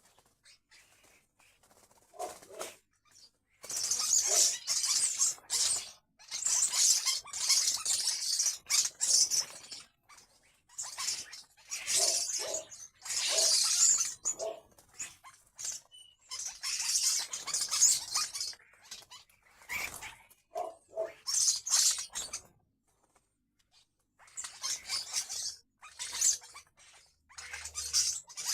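Two birds squabbling over a fig: repeated bursts of harsh, scratchy calling, each one to two seconds long, with short gaps between them.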